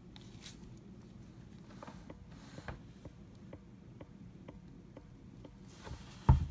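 Light, evenly spaced clicks, about two a second, from a Smith & Wesson Model 36 snub-nose revolver being handled and turned over, then one louder knock near the end.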